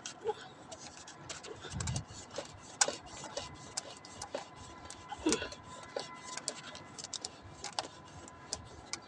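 Irregular clicks, scrapes and small knocks of a plastic water pipe being screwed by hand into the brass inlet fitting of a small electric water pump.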